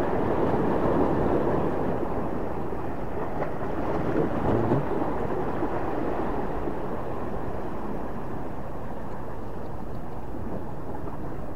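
Wind buffeting the microphone over sea waves washing against breakwater rocks: a steady low noise, a little louder in the first few seconds.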